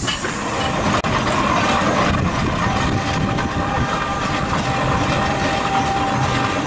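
Antique steam traction engine running as it drives along a gravel track, a steady mechanical running noise, after a sharp break about a second in.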